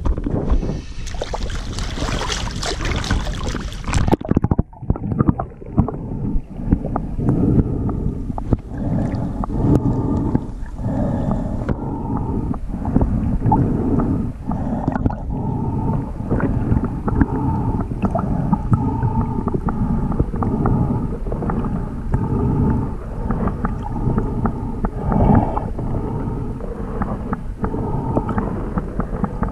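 Sea water splashing around the camera at the surface for about the first four seconds, then cut off sharply to a muffled underwater sound as the camera goes under: a dull, low rumble of moving water with many small knocks and taps.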